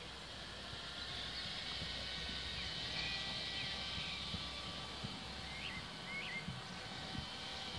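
Small birds chirping and whistling in short rising and falling calls, with two clear calls close together past the middle, over a steady low rumble. Faint soft thuds of a horse's hooves walking on arena sand.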